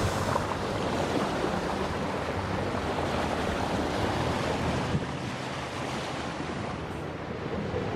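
Bow wave rushing and splashing along a moving sailboat's hull at sea, with wind buffeting the microphone. It is a steady hiss-and-wash of water that eases slightly in the last few seconds.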